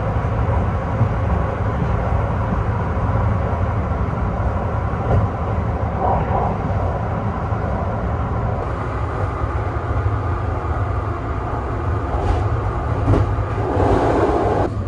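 Vista Car limited express train running at speed, heard from inside a passenger compartment: a steady low rumble of the wheels on the rails. A louder swell of mid-pitched noise rises near the end.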